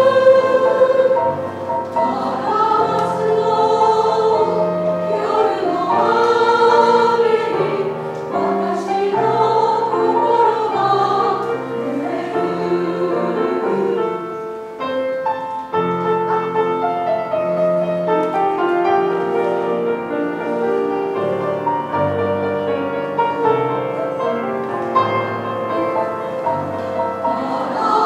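Women's choir singing in parts with piano accompaniment, with a brief lull about halfway through.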